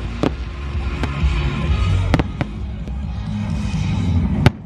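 Fireworks exploding at a large display: several sharp bangs, the loudest near the end, over a steady low rumble.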